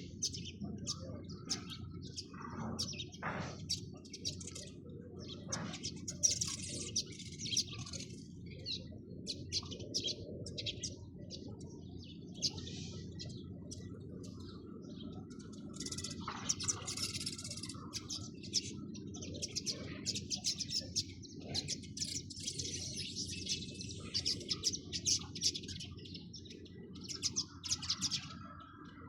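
A flock of sparrows chirping continuously: many short, overlapping chirps, busier in a few bouts, over a steady low background noise.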